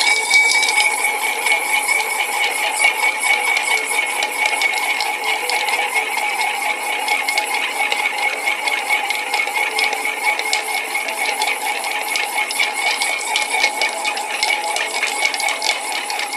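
Ice cubes clinking and rattling in a stirring glass as a bar spoon stirs a cocktail to chill it: a fast, steady clatter, with the glass ringing.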